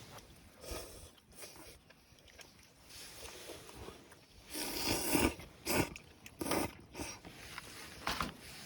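Someone slurping and eating ramen noodles: a longer slurp about halfway through, then several short slurps.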